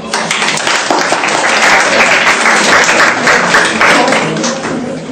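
Audience applauding: many hands clapping, starting suddenly, swelling and then fading near the end.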